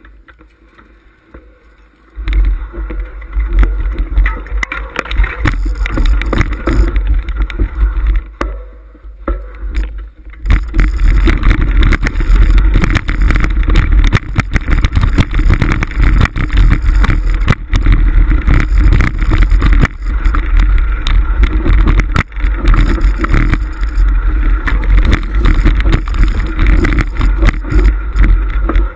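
Mountain bike ridden over a rocky dirt trail, heard from a camera mounted on the bike: heavy wind rumble on the microphone with the rattle and clatter of the bike over stones. It starts about two seconds in, eases off for a couple of seconds around the middle, then runs louder and steady from about ten seconds in.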